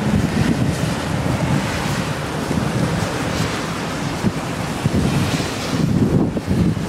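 Wind buffeting the microphone outdoors: a loud, low rumbling noise that rises and falls unevenly.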